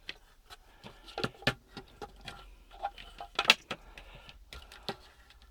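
Irregular small clicks and knocks of hard parts being handled, typical of working a freed terminal block loose from a battery case. The loudest knock comes about three and a half seconds in.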